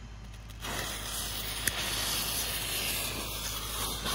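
Smoke-ball fuses hissing as they burn, starting about half a second in once lit, with a single sharp click about a second later.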